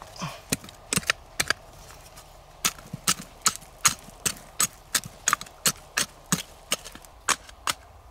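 A short-handled digging hoe chopping into stony soil: a quick run of sharp strikes, a few at first and then about three a second.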